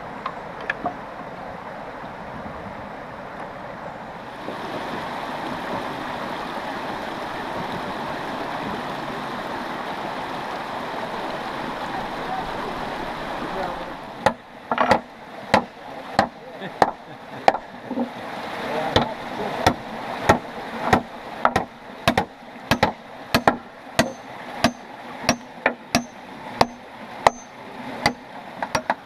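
A rocky stream running steadily. Then, about halfway through, hammers start driving nails into the new wooden deck boards of a foot bridge, with sharp strikes about one to two a second that come faster toward the end.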